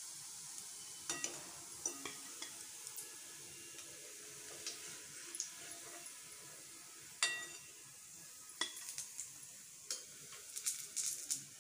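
Oil sizzling steadily as fish balls deep-fry in a kadai, with scattered metal clinks and taps of a slotted spoon against the pan, the sharpest about seven seconds in and several in quick succession near the end.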